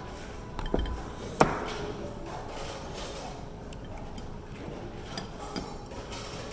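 A heavy ceramic udon bowl set down on a tray: two sharp knocks about a second in, the second the loudest and briefly ringing, then a few faint clinks of chopsticks and tableware near the end.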